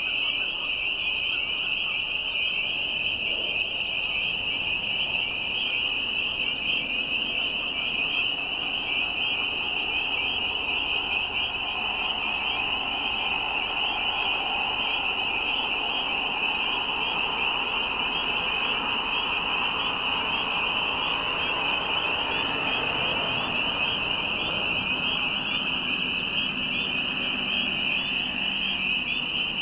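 Dense chorus of spring peepers at a wetland: many high, short rising peeps overlapping into one continuous, steady wall of sound.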